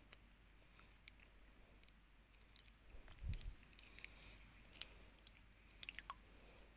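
Near silence, with scattered faint ticks and clicks and a soft low bump about three seconds in.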